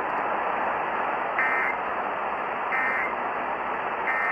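Three short bursts of the Emergency Alert System end-of-message data tones (NNNN), a buzzy two-tone digital squawk repeated about every 1.3 seconds over steady radio hiss. They are the code that closes the alert.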